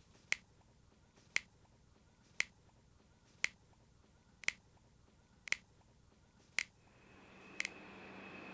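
Eight single finger snaps, evenly spaced about one a second. A faint steady hum comes in near the end.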